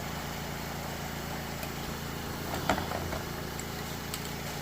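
Steady low hum of a running motor or machine, with a few light clicks and knocks, the clearest about two and a half seconds in.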